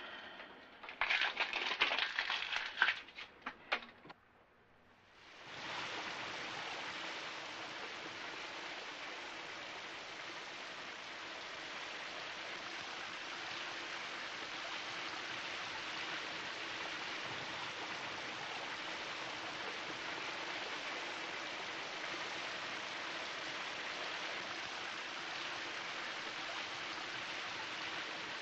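A few seconds of loud clattering rustle, then a short hush before a shower comes on about five seconds in: a steady hiss of spray falling on a bather and a tiled stall.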